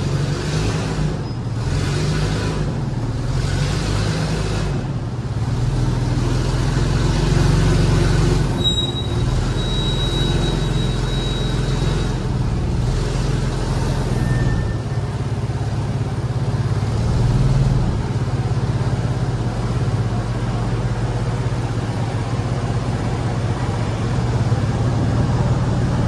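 Forklift engine running steadily as the mast is lowered to tilt a vertical baler over. A thin high squeal sounds for about three seconds near the middle.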